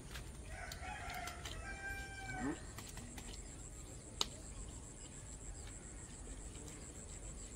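A rooster crowing once, a pitched call about two seconds long that falls away at the end, followed by a single sharp click.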